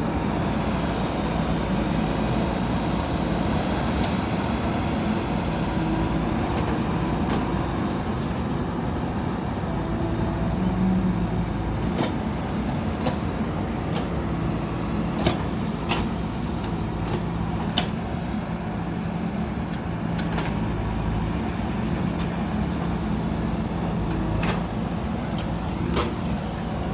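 Backhoe loader's diesel engine running steadily while working, with sharp metallic clanks from the bucket and arm now and then, most of them in the second half.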